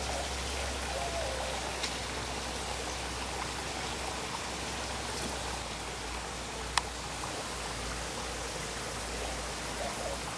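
Steady hiss like running water, with a few faint short squeaky glides and a single sharp click about seven seconds in.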